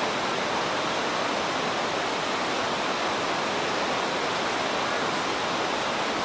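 Steady rushing of running water from the artificial water feature in a raptor flight enclosure.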